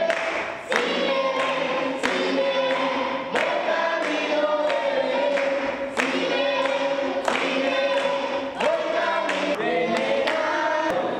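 A group of voices singing a song together, with sharp beats about every two-thirds of a second that fit hand-clapping in time.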